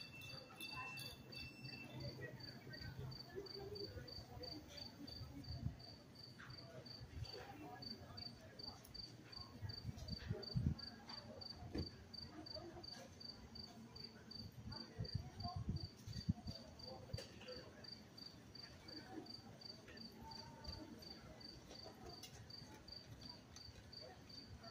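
A cricket chirping at an even pace, a few short high chirps a second, over a faint low rumble and distant murmur.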